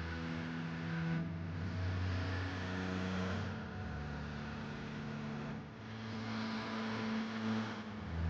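Background music: low bass notes held and stepping to new pitches every second or two, over a dense, distorted-sounding upper layer that swells and dips in a slow, regular rhythm.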